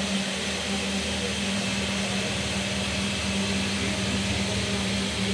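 A steady machine hum with a constant low tone, unchanging throughout.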